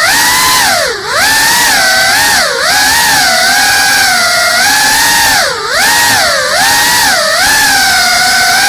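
GEPRC CineLog35 ducted cinewhoop FPV drone's brushless motors and propellers whining, the pitch dropping and climbing with each throttle change, with sharp dips about a second in, near two and a half seconds, and again near five and a half seconds.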